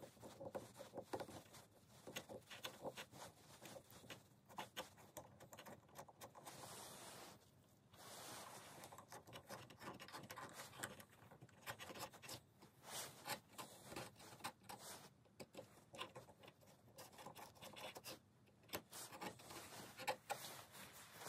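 Faint, irregular scratching and clicking of a small hand drill twisted by hand, its bit boring out a hinge pin hole in an RC plane elevator to fit a brass tube. There is a short lull about seven seconds in.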